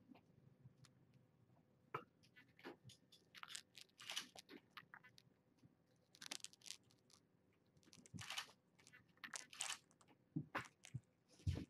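A kitten's fur and face brushing and rubbing against the microphone, heard as a string of short, scratchy rustles with a few sharp clicks between them.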